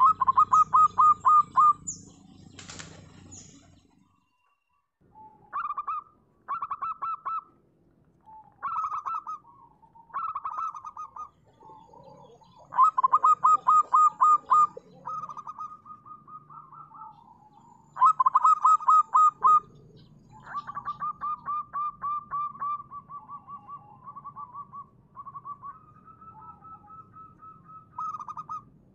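Zebra dove (perkutut) cooing: repeated bouts of quick, rapidly repeated notes, each bout a second or two long, with short pauses between. A single sharp click sounds about three seconds in.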